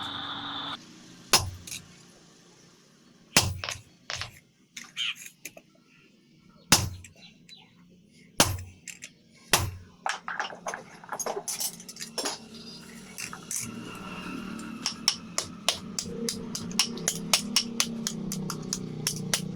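Blacksmith's hammer striking iron on an anvil: a few loud, widely spaced blows, then quicker, lighter strikes, about two a second near the end. A low steady hum rises under the later strikes.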